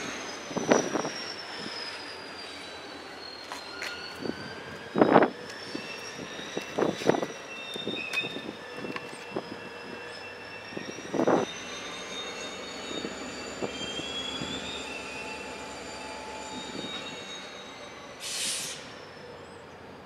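Freight train rolling slowly, its wheel flanges squealing in long wavering high tones, with clanks and knocks from the wheels over the track, loudest about five and eleven seconds in. A short hiss comes near the end.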